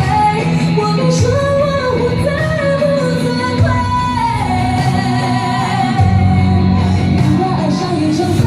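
A woman singing a pop ballad live over amplified instrumental accompaniment.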